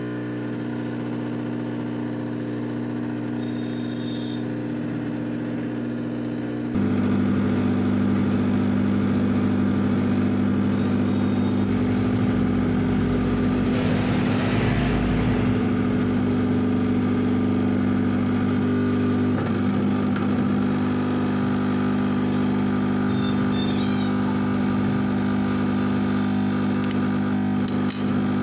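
Hot-air rework gun running with a steady motor hum and rush of blown air, stepping up louder about seven seconds in, as it heats the phone's display to soften the adhesive.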